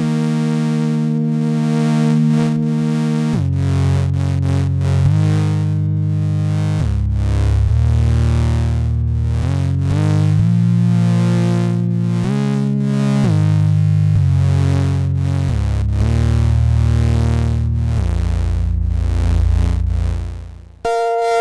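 Ensoniq EPS16+ sampler playing the B28 waveform, a monophonic fizzy saw-like tone built from a root and a fifth. It plays a slow line of sustained notes that glide in pitch from one to the next, while the mod wheel sweeps through the waveforms to shift the timbre. Near the end a long low note fades out, then a higher note begins.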